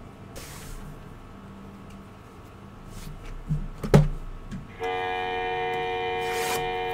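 A red beacon alarm light sounds a steady, horn-like tone of several pitches at once, starting about five seconds in and holding. Before it comes quiet handling of cards and box packaging, with one sharp knock about four seconds in.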